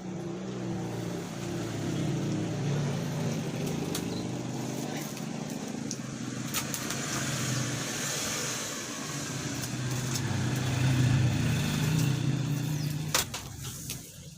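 Jinka Pro 451 vinyl cutting plotter running a cut: its motors make a steady low hum that swells and fades as the carriage and roller move, with a few sharp clicks. It stops with a click about a second before the end.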